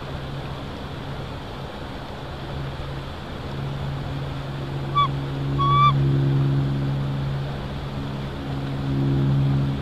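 Steady low drone of a distant engine, swelling and fading a couple of times, with two short bird calls about five seconds in.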